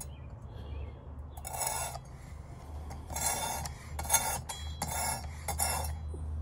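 About five short rasping strokes of a Work Sharp guided sharpener's 320-grit abrasive drawn along a clamped knife edge. They are test strokes over a marker-coated bevel, made to check whether the set angle meets the edge.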